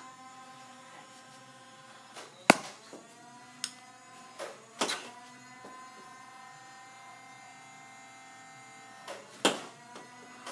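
A few sharp clicks and knocks, the loudest about two and a half seconds in, over a faint steady hum.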